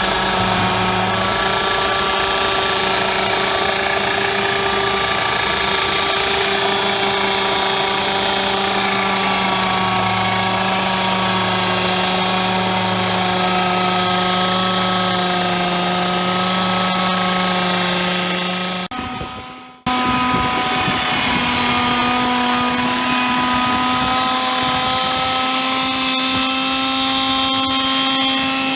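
Portable on-site machining rig running as it faces a large steel ring: a steady motor whine over a cutting hiss. It fades out briefly about two-thirds of the way through and comes back at a higher pitch.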